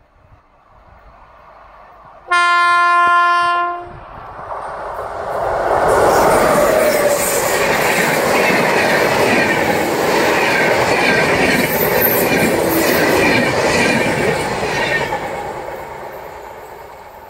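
An Indian Railways express train sounds one blast of its locomotive horn about two seconds in. The train then passes at speed with its wheels clattering on the rails, and the noise fades as it recedes.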